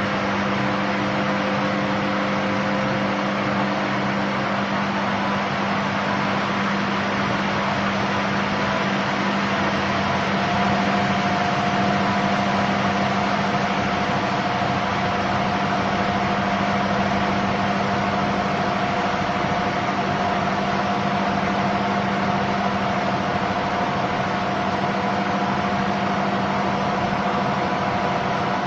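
Miele W1 Classic washing machine in its spin cycle with an unbalanced load: a steady motor and drum hum with the suspension springs and dampers rattling. A higher whine joins about ten seconds in. The spring and damper rattle is a known W1 Classic problem even at light loads, which Miele's service calls normal.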